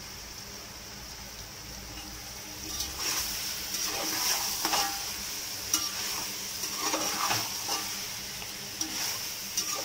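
Soya chunks and potatoes sizzling in an aluminium pot as a steel spatula stirs them. From about three seconds in, the spatula scrapes and clicks against the pot again and again.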